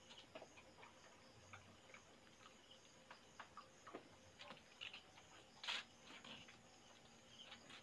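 Near silence at night: faint, irregular ticks and clicks over a faint, steady high chorus of night insects.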